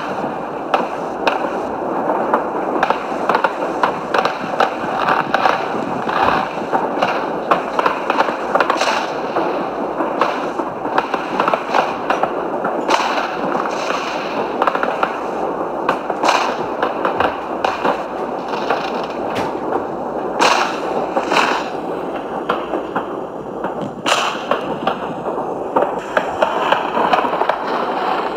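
Aerial fireworks bursting without a break: a dense run of overlapping pops, crackles and bangs.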